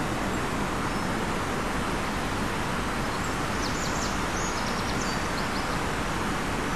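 A steady rushing background noise, like distant road traffic, with a quick run of short, thin, high bird chirps a little past halfway.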